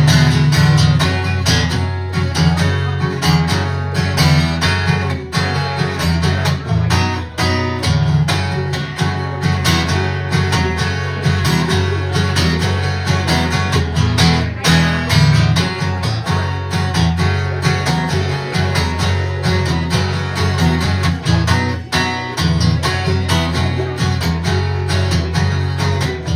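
Strummed acoustic guitar playing an instrumental break in a live folk-rock song, with no singing.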